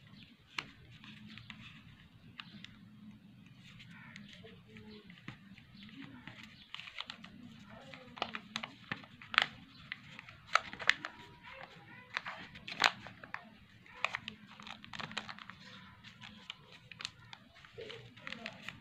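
A sheet of paper being folded and creased by hand: dry crinkles and sharp crackles of the paper, many of them close together from about eight seconds in until near the end, over a faint low hum.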